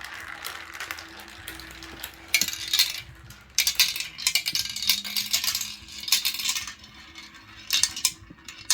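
Marbles rolling down a marble run track: a steady rolling rattle, then bursts of dense clicking and clattering as they drop and knock through the run, loudest from about two and a half to six and a half seconds in, with another short clatter near the end.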